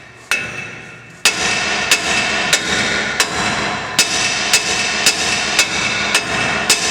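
Hammer blows on the steering knuckle of a Ram 2500 to shock the seized lower ball joint stud free: one hit, then from about a second in a steady run of sharp metal strikes, roughly one and a half a second, with a steady loud noise continuing between them.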